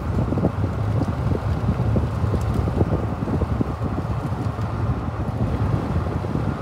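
Wind buffeting the microphone from a moving car, over steady road noise from the car.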